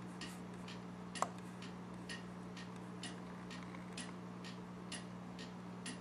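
Regular ticking, about two ticks a second, with one sharper click about a second in, over a steady low electrical hum.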